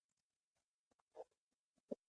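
Faint eating sounds while eating cake: a few soft mouth clicks and taps, the sharpest just before the end.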